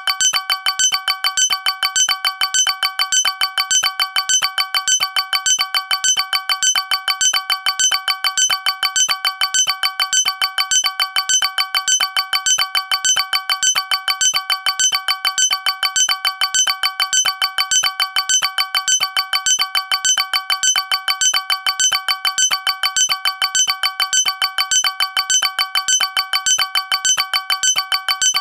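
Fake Colombian emergency alert (EAS-style) alarm tone: a loud electronic chime-like pattern of several tones pulsing evenly, a few times a second, repeating without pause and with no spoken message.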